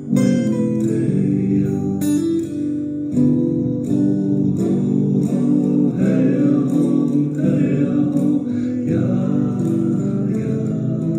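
Acoustic guitar playing a song accompaniment, its chords and notes ringing steadily.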